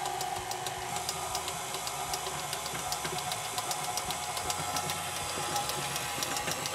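KitchenAid tilt-head stand mixer running slowly, its motor humming steadily with a fast run of light clicks as the beater works through thick gingerbread cookie dough.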